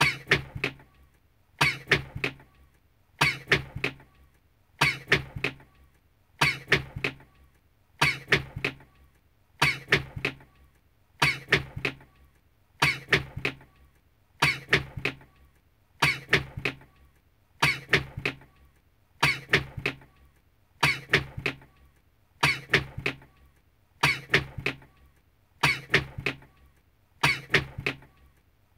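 A man's sneeze repeated in a loop, the same short clip about every 1.6 seconds, some eighteen times.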